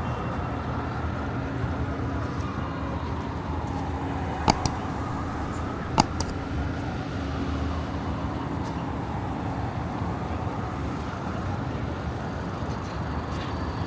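Street traffic ambience: a steady wash of road noise and running engines. Two sharp knocks come about a second and a half apart, about a third of the way in.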